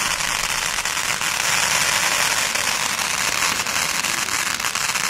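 Fireworks crackling: a dense, continuous crackle of countless tiny pops over a steady hiss, with no single large bang standing out.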